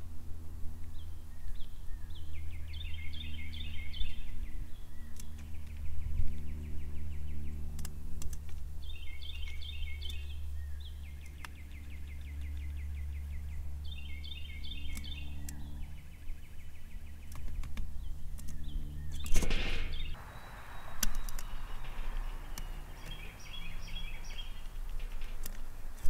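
A songbird sings in the background. Its phrase of quick repeated notes ending in a trill comes back about every six seconds, over a steady low hum. About two-thirds of the way through there is a single sharp knock, and a steady hiss follows it.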